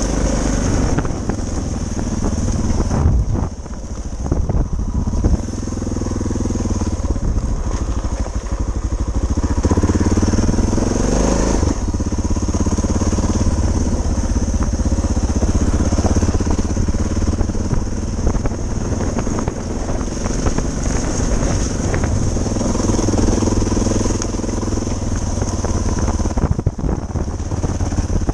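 Suzuki DR650's single-cylinder four-stroke engine running under way on a gravel track, its note falling and rising with the throttle: a dip about three seconds in and a steady climb a little before the middle.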